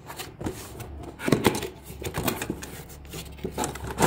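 Cardboard toy box being opened by hand, its flaps pulled open and a plastic toy slid out: a run of irregular cardboard scrapes, rustles and knocks, loudest a little over a second in and again near the end.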